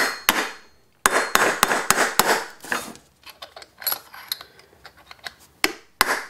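Small hammer striking a metal socket used as a drift to tap a ball bearing out of a DLE 55 engine's crankcase, metal on metal. The strikes come in quick runs of sharp, ringing hits, with lighter taps in the middle and harder hits again near the end.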